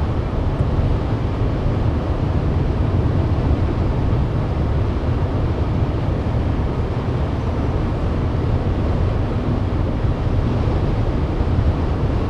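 Steady low rumble of a moving car: road and engine noise, even throughout with no separate events.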